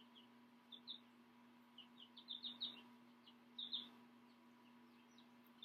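Faint high bird chirps: short falling peeps that come in quick clusters of two to five, several times, over a faint steady hum.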